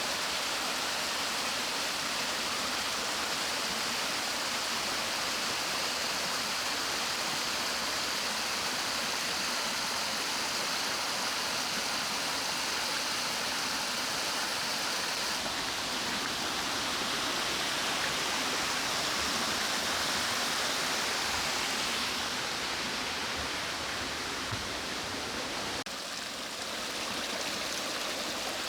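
Forest mountain stream running over rocks: a steady rushing of water. Its tone shifts a little a few times.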